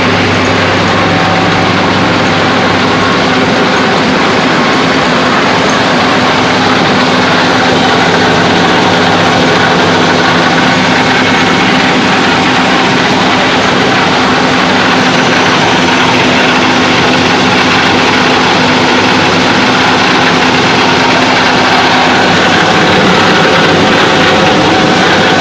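Small rice milling plant running: the machines give a loud, steady mechanical noise with a constant hum.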